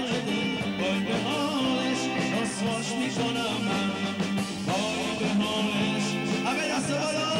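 Live band playing dance music with a singer.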